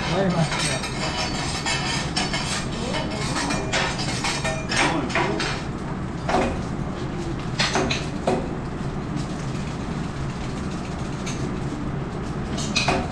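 Metal teppanyaki spatulas and a steel rice mould clanking, tapping and scraping on a steel griddle while fried rice is cooked, in sharp irregular clinks. A steady low hum runs underneath.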